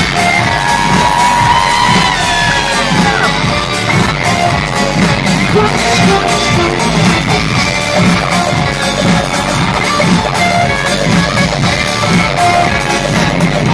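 Live pop concert music played loud through a festival sound system, with guitar in the mix. In the first few seconds a long note slides up and back down.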